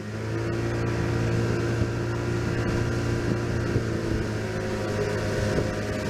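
Boat's outboard motor running steadily at speed, a steady hum over a rushing noise of water and air.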